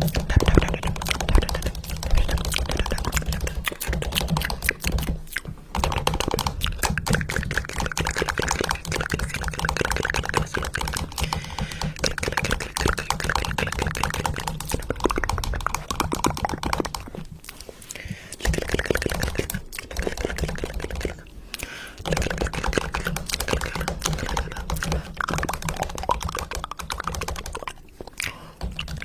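Fast, dense clicking like typing on a keyboard, over a low buzz, broken by a few short pauses.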